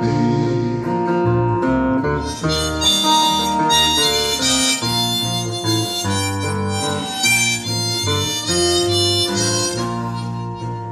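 Harmonica solo over acoustic guitar and electric bass, in an instrumental break between sung verses.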